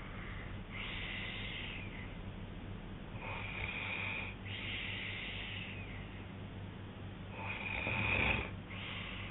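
A sleeping man snoring: a run of noisy breaths in and out, each about a second long. The loudest, with a deeper rumble, comes about eight seconds in.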